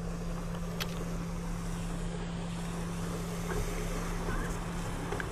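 Bow-mounted electric trolling motor running with a steady low hum, over wind and water noise; the hum cuts off at the end. A single light click about a second in.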